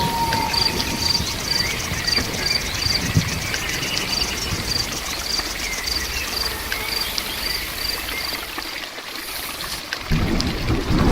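Steady rain with an insect chirping high and regular, about two chirps a second, for most of the stretch; the rain's low rush swells again near the end.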